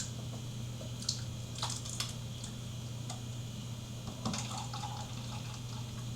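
Someone drinking Soylent, a thick liquid meal replacement, from a glass: a few small liquid and swallowing sounds over a steady low hum.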